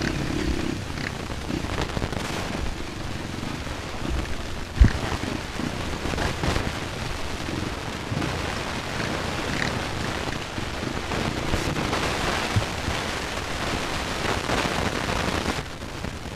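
Trail motorcycle on the move, heard as a steady rough rush of engine and wind noise on the on-bike camera. One sharp knock comes about five seconds in.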